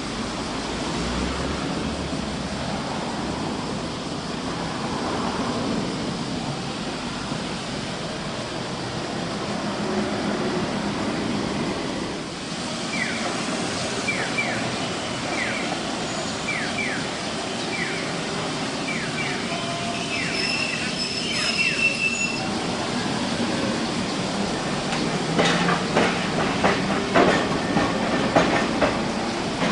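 Okayama Electric Railway street tram running on its rails, with steady rolling noise. A high wheel squeal comes about two-thirds of the way through, and a quick run of clacks from the wheels over rail joints follows near the end.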